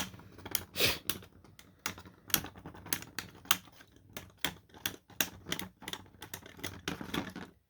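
Two 3D-printed Beyblade tops clashing and scraping in a plastic stadium: a fast, irregular run of sharp clicks and hits. The hits stop shortly before the end.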